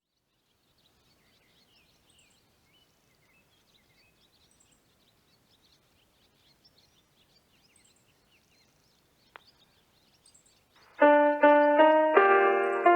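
Faint bird chirps, with a single click a little after nine seconds in. About eleven seconds in, a disaster-prevention outdoor loudspeaker starts the noon chime, a melody in a piano-like electronic tone.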